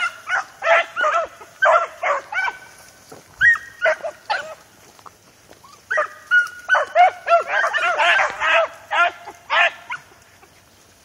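A pack of dogs running a rabbit, giving repeated high yelping barks that overlap. The barking eases off about four seconds in, comes back as a dense chorus of several dogs at once, and stops about ten seconds in.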